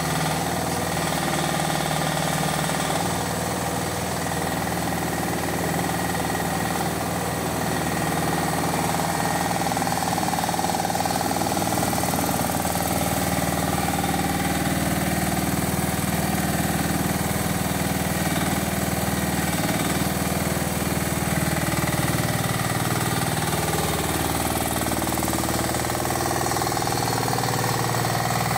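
Small engine of a Tigon TE-10HD one-ton mini excavator running steadily, its pitch shifting slightly, as the machine is driven on its tracks.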